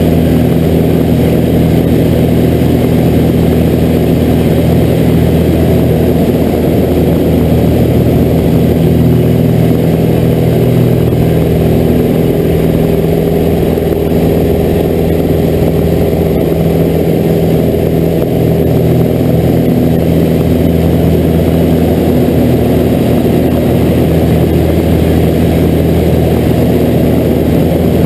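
Pitts S-2A biplane's four-cylinder Lycoming engine and propeller running steadily, heard from inside the cockpit.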